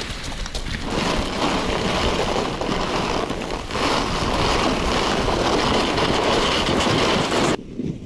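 Strong wind buffeting the microphone, a loud steady rushing hiss that drops away abruptly near the end.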